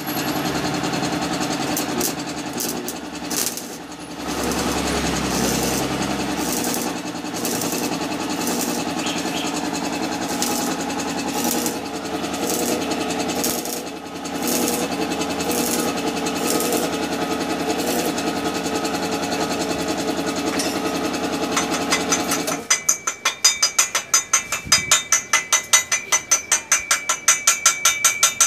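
Stick (arc) welding on a bicycle frame tube: the arc gives a steady crackling buzz for about twenty-two seconds. It then stops, and a hammer taps rapidly on the weld, about five strikes a second, chipping off the slag.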